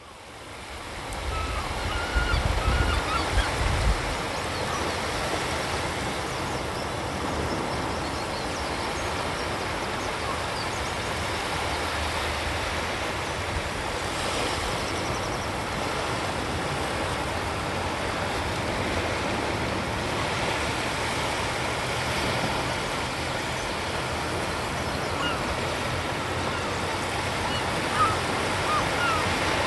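Surf washing onto a sandy beach, a steady hiss of waves that fades in at the start, with a heavier low rumble between about two and four seconds in. A few short bird calls come near the start and again near the end.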